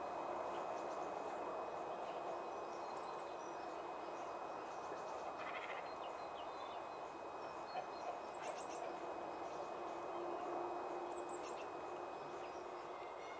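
Steady outdoor background rumble with scattered short, high bird chirps, a few separate calls about halfway through and later on.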